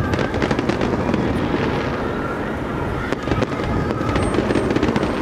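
Aerial fireworks bursting in quick succession: a dense run of cracks and pops over continuous low rumbling.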